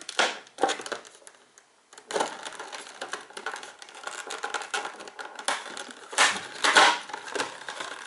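Stiff clear plastic blister packaging crinkling and crackling as it is handled and pried open. There is a brief lull about a second in, then continuous crackling with several louder crackles.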